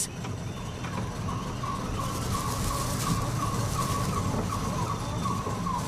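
Prince Bernhard's titi monkeys calling in a duet: a rapid series of short, repeated notes, starting about a second in.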